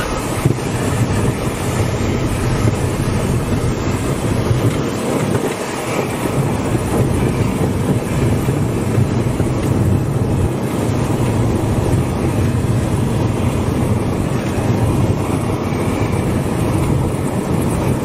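Cessna 172N's four-cylinder Lycoming O-320 engine running steadily with the propeller turning, heard from inside the cabin, over the rumble of the wheels rolling on the runway.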